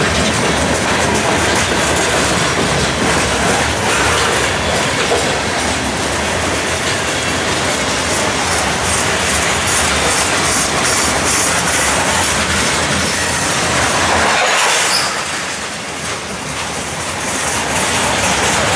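Freight cars (covered hoppers, then tank cars) rolling past at close range: a steady rumble of steel wheels on rail with rhythmic clicking over rail joints and a few brief high wheel squeals. The noise eases for a moment a few seconds before the end, then picks up again.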